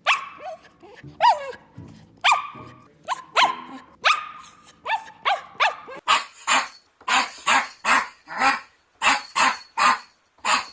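A dog barking repeatedly: spaced single barks at first, then from about halfway a quicker, steady run of barks about two a second.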